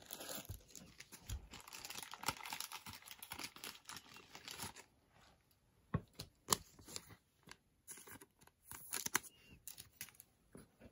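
Thin plastic crinkling and rustling as a trading card is handled in its plastic. A continuous rustle for about the first five seconds, then scattered short crinkles and light clicks.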